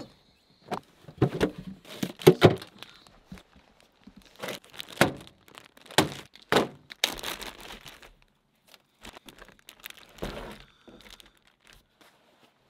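A string of thunks and knocks as gear is shifted around in a pickup truck and set down, with a plastic bag crinkling in between. The loudest knocks come about two seconds in and again around six seconds in.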